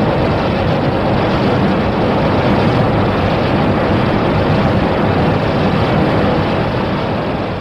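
A Ghost Godzilla monster sound effect: a loud, steady rushing rumble with no clear pitch, fading out near the end.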